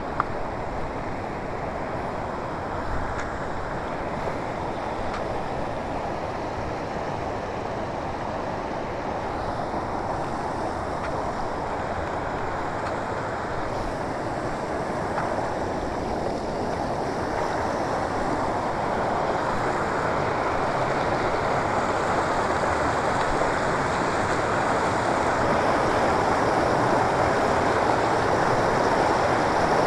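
Shallow river water rushing over rocks in small rapids, a steady rush that grows a little louder toward the end.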